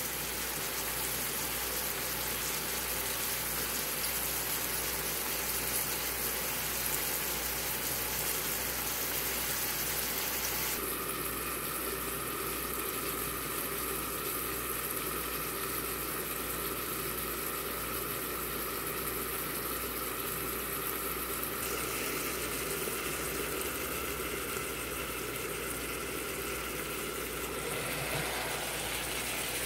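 Bitter melon, tomato and onion stir-fry sizzling and steaming in a frying pan, a steady hiss that turns duller about eleven seconds in once the pan is covered with its glass lid. A low steady hum runs underneath.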